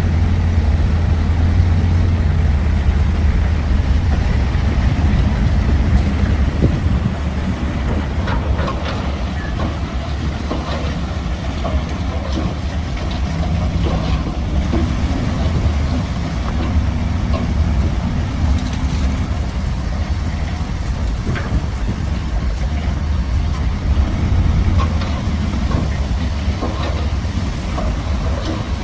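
Diesel engine of heavy road-construction machinery running steadily with a deep low drone, with a few short knocks over it.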